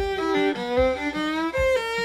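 Fiddle playing a bowed bluegrass solo in G, improvised over the chord changes. It runs as a chain of sustained notes, a few sliding up into pitch, with a low thump about every 0.8 seconds underneath.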